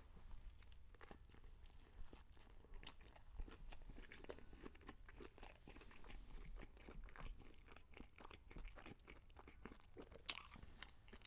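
A person biting into and chewing a crispy breaded fried chicken sandwich close to the microphone: faint, irregular crunching of the fried coating, with a few sharper crunches among many small ones.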